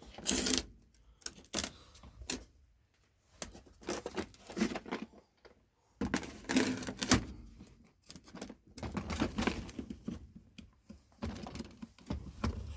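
Plastic storage boxes being handled and pried at: irregular clicks, knocks and rattles of hard plastic, with short rustles between quiet gaps.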